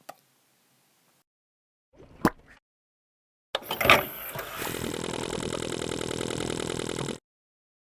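A brief sharp sound about two seconds in, then a motor-like whirr that starts with a burst about three and a half seconds in, runs steadily with a fast, even rattle, and cuts off suddenly.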